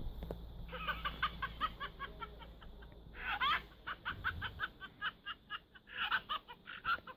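Oh plush toy's electronic sound module playing a long run of short chirping calls, about five a second, with a quick swooping squeal about three seconds in.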